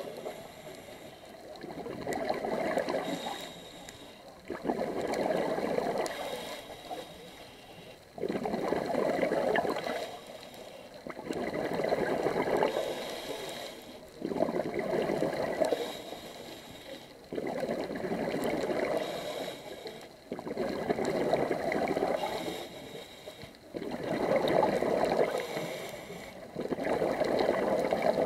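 A scuba diver's regulator heard underwater: a burst of exhaled bubbles gurgling about every three seconds, in a steady breathing rhythm, with quieter stretches between.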